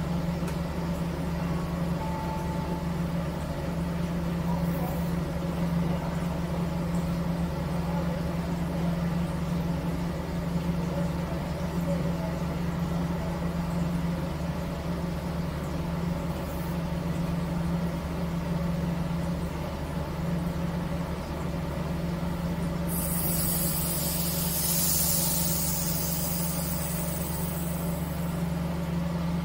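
The car ferry's MWM diesel engine running steadily, a low drone heard inside the wheelhouse. About three-quarters of the way through, a hiss comes in for a few seconds.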